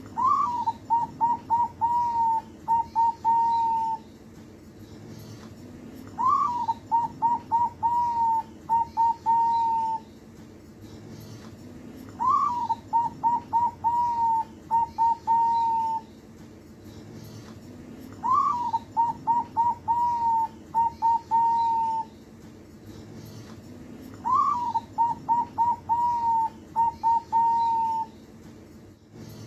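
Zebra dove (perkutut) cooing its song phrase five times, about every six seconds: a short rising note, then a quick run of short coos, ending on a longer held coo.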